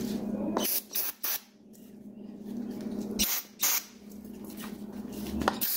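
Aerosol spray can hissing: one spray at the start, then several short, sharp bursts.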